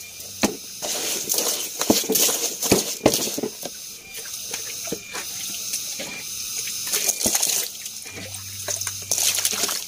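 Water spraying onto the plastic bed of a toy dump truck and washing wet sand off it, a steady hiss broken by many sharp splatters and taps.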